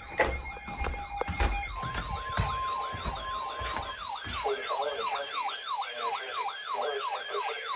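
Electronic siren-like alert tone sweeping down in pitch over and over, a little over twice a second. It is preceded by a short stretch of steady tones and sharp clicks.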